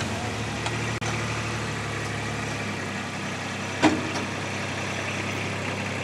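Engine of an all-terrain oil-spill vacuum unit running steadily, its low hum easing slightly about two and a half seconds in. A single short knock comes near four seconds in.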